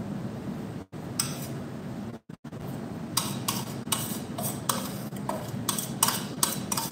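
Kitchen utensils clinking and tapping against dishes on a counter, a run of light irregular clicks that starts about three seconds in, over a low steady background hum.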